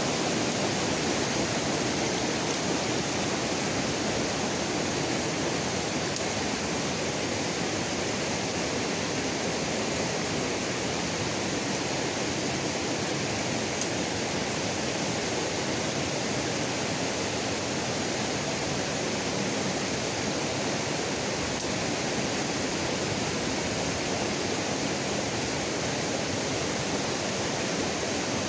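Shallow rocky river flowing over stones: a steady rushing noise that stays even throughout.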